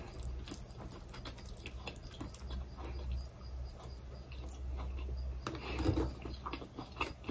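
Quiet, close-miked eating sounds: soft wet clicks and smacks of chewing sticky rice dipped in Thai eggplant dip, eaten by hand, over a faint low hum.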